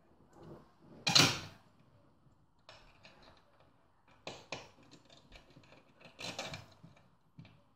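A screwdriver driving a screw into a makeshift M6 butterfly-anchor fixing in a wall socket box: a scraping rustle about a second in, then scattered metallic clicks and ticks, and another scrape near the end.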